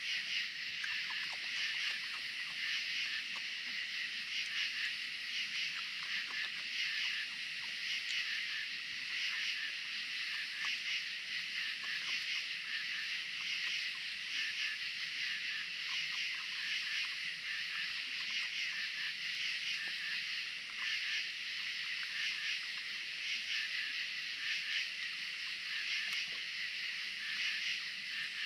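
Steady night chorus of insects, a dense high shrill trilling with a slight pulse, with a few faint clicks now and then.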